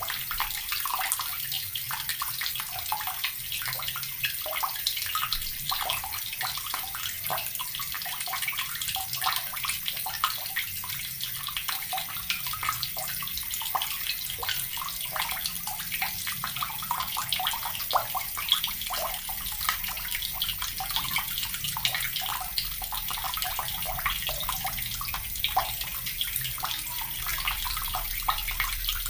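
Water running from a tap into a plastic bucket, a steady splashing stream with many small irregular plops and gurgles.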